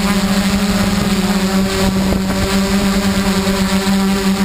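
Xaircraft X650 quadcopter's electric motors and propellers running with a steady, unchanging hum, with wind noise on the microphone.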